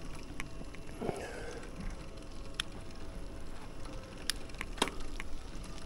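Electric-assist bicycle being ridden: low rumble of tyres and wind on the microphone, a faint steady hum, and scattered sharp clicks and ticks.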